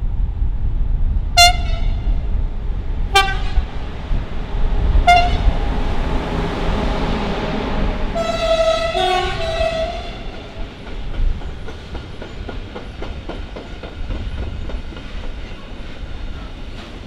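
Electric locomotive's horn sounding three short toots about two seconds apart, then a longer two-tone blast as it passes. A rumble swells as the locomotive goes by, and loaded container wagons then roll past with a steady rumble and rhythmic wheel clicks over the rail joints.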